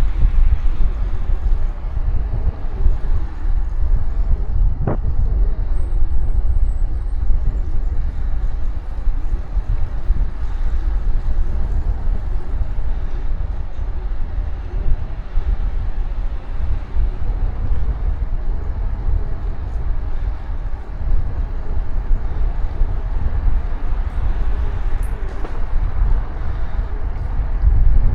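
Steady low rumble of wind buffeting the microphone and road noise from a bicycle riding along, with one sharp click about five seconds in.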